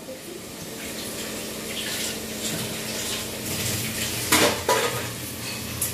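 Stainless-steel kitchen utensils clinking and knocking, with two sharper clanks about four and a half seconds in, over a steady low hum.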